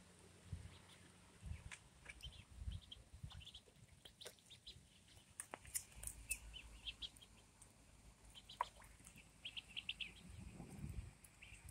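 Ducklings peeping faintly: short, high peeps coming in scattered clusters, thickest about three seconds in, around six to seven seconds in, and near the end.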